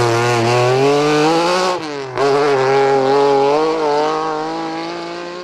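Rally car engine pulling hard as the car accelerates away. A gear change comes about two seconds in, then the engine pulls again and fades out near the end.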